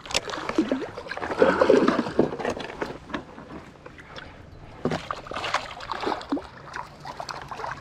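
Water splashing and sloshing beside an inflatable kayak, with irregular knocks and clicks of handling, as a small pike is freed from the landing net and swims off.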